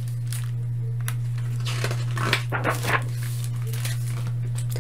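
Pages of a hardcover picture book being handled and turned: a few short papery rustles and taps, most of them between about two and three seconds in. A steady low electrical hum runs underneath.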